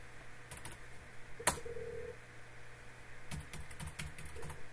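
Computer keyboard typing: a few light key clicks, then one sharp keystroke about a second and a half in that runs a terminal command. Near the end comes a quick run of key taps as a password is entered, closed by another sharp keystroke.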